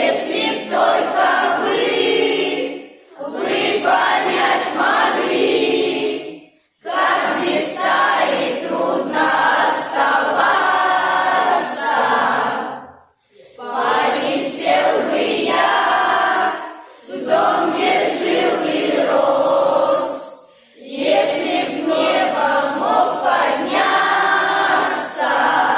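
A choir singing, in phrases of about six seconds each separated by short breaths.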